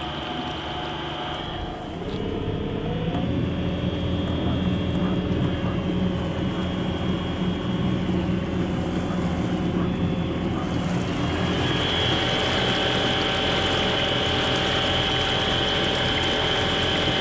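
Homemade brushless (BLDC) electric outboard motor running the boat under way: a steady electric whine with a mechanical hum beneath it. About two to three seconds in, its pitch steps up and it grows louder as the throttle is opened a little. A high thin whine drops out and comes back about halfway through.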